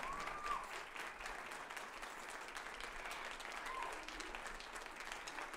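Audience applauding, with a short whistle right at the start and another about two-thirds of the way through.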